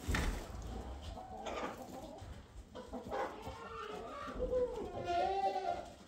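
Chickens clucking, a string of short calls that grows louder about four and a half seconds in.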